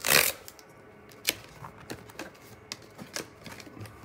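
Cardboard box flap pulled free of its sealing sticker, with a short ripping sound at the start, then scattered light clicks and taps as the card box's lid is opened and handled.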